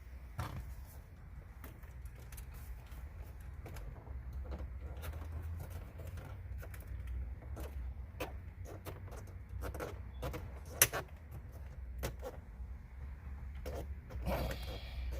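Plastic creaking and scattered clicks as a trim removal tool pries at the clipped radio trim panel in a 2006 BMW 330i dashboard, with one sharp snap about eleven seconds in, over a steady low rumble.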